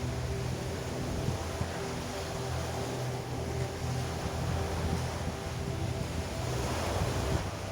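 Steady wind and sea-water noise with wind buffeting the microphone, over a low, even engine drone that fits a boat under way.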